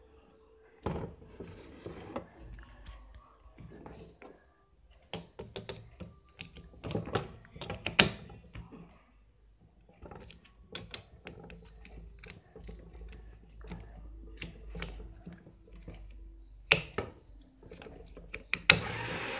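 Irregular clicks, taps and knocks from hands handling a small Arduino robot car's acrylic chassis and wiring, with a few sharper, louder knocks. Near the end a steady noise starts.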